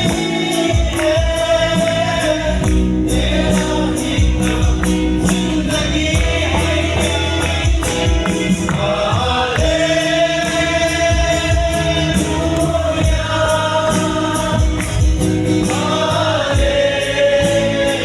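Gospel music: a choir singing held lines over a bass and a steady percussion beat.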